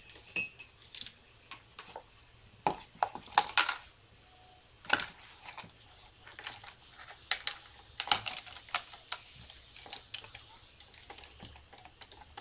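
Irregular light clicks and clinks of a paintbrush against a watercolour palette and its paint pans while painting, with a cluster of louder knocks about three seconds in.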